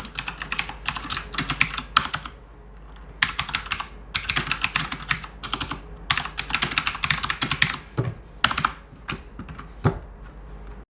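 Mechanical keyboard with clicky switches being typed on in quick bursts of keystrokes separated by short pauses, the sharp clicks of each key press plainly heard.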